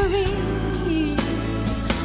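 Gospel-style song performed with a singer and musical accompaniment: a held sung note slides down and ends about half a second in, and the accompaniment carries on with a steady beat.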